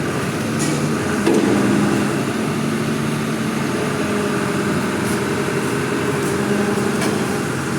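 Excavator's diesel engine running steadily under load, with a few faint clicks.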